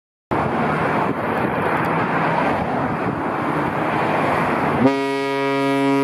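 A steady rushing noise, then about five seconds in a cruise ship's horn starts a long, steady, deep blast rich in overtones.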